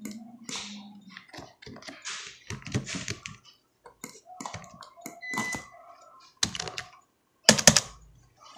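Computer keyboard keystrokes and mouse clicks entering and cancelling drawing commands, with the loudest cluster of key presses about seven and a half seconds in.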